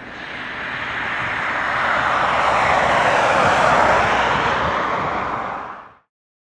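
Jet aircraft engines making a steady rushing roar that swells over the first few seconds and then fades out to silence near the end.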